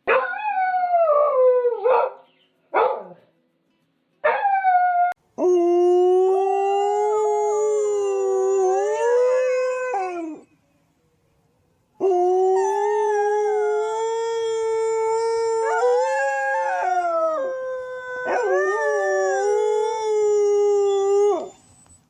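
Dog howling: a few short falling yowls in the first three seconds, then two long drawn-out howls of several seconds each. A second howling voice joins briefly in the middle of the second howl.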